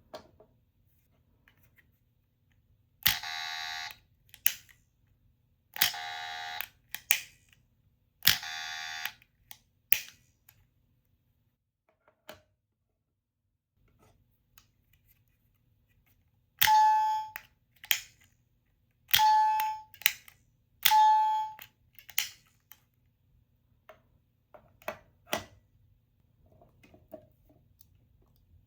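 Small electronic sound toy pressed again and again, each press a button click. Three short buzzer tones sound about two and a half seconds apart, then a few seconds later three short ringing chime tones.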